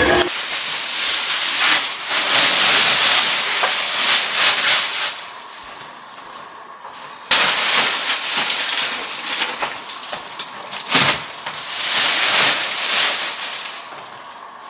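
Plastic shopping bags crinkling and rustling as they are handled, in several loud irregular spells with a sharp crackle about eleven seconds in.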